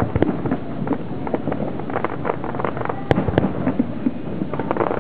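Aerial fireworks bursting: a dense, irregular run of pops and bangs, with one louder bang about three seconds in.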